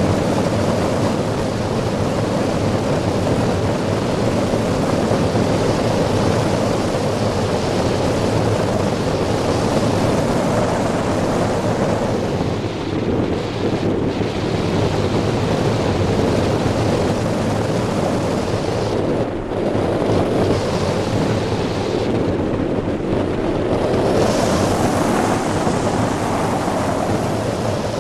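Wind rushing over the microphone of a hang glider in flight: a loud, steady rush of air that eases for moments a few times.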